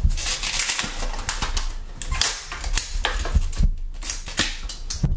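Clear plastic shrink-wrap crinkling and crackling as hands tear it open and peel it off a small cardboard iPod box, in irregular clicks and rustles with a short pause a little past halfway.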